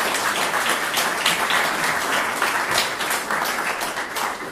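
Audience applauding, many hands clapping at once in a dense patter that begins to thin near the end.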